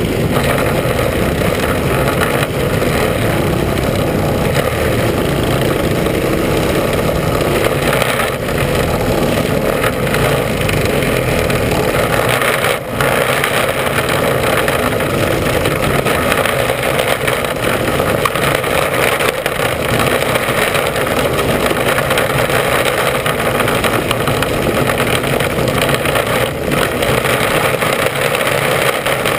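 Mini Sprint race car's engine running, loud and close, with a short dip in level about halfway through.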